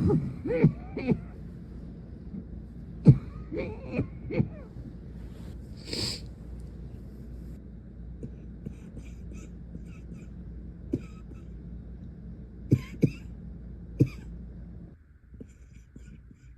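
A young woman coughing in fits during a persistent night-time coughing attack: a burst of several quick coughs at the start, another cluster of three or four a few seconds later, then single, smaller coughs spaced a second or more apart. A steady background hum cuts off near the end.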